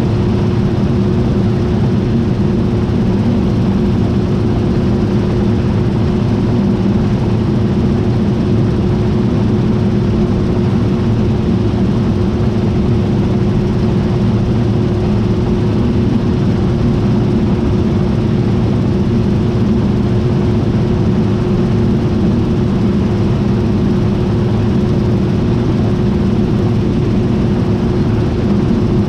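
John Deere T660i combine harvester running steadily: a constant, unchanging machine drone with a steady hum over it.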